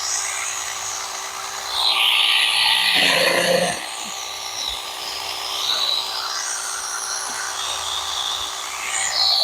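Saker 6-inch battery-powered mini chainsaw running with a steady electric motor whine, cutting through small branches. The sawing gets louder and rougher about two seconds in and again near the end as the chain bites into the wood.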